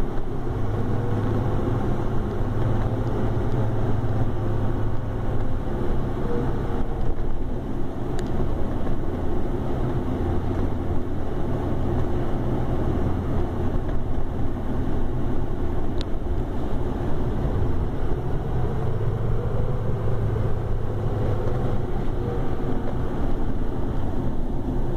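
Steady engine and road noise inside the cab of a Ford Super Duty truck driving along a street, with a faint whine that rises and falls twice.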